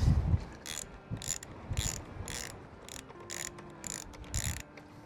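Ratchet wrench being worked back and forth on a bolt, a short burst of clicking about twice a second, with a knock at the start.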